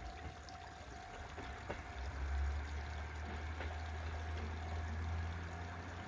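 Distant diesel railcar approaching; its engine is a low rumble that swells about two seconds in and then holds steady, over a constant hiss.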